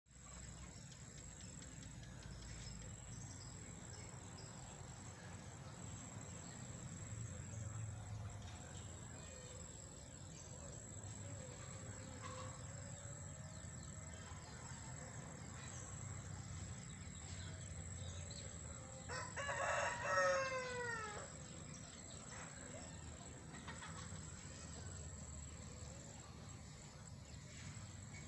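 A rooster crowing once, about two-thirds of the way in: one call of about two seconds that falls in pitch at its end, over steady low background noise.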